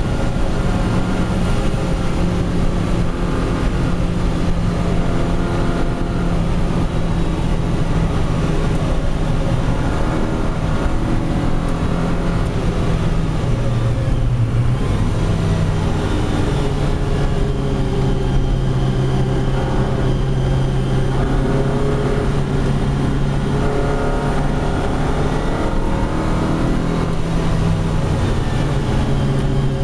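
Lotus Elise engine heard from inside the cabin under load on track, its note stepping down at gear changes about halfway through and near the end, over steady road and tyre noise on a wet surface.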